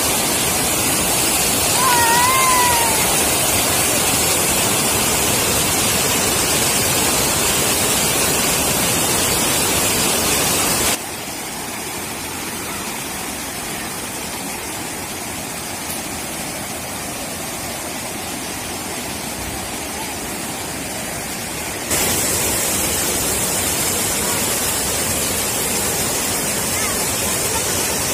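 Flood-swollen river water rushing and churning over a dam overflow: a steady, even noise of water that drops in level at about 11 seconds and comes back up at about 22 seconds. A short rising-and-falling whistle-like note sounds about two seconds in.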